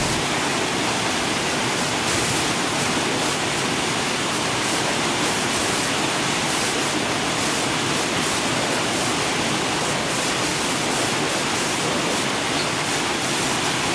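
Steady rushing of flowing water from a mountain stream.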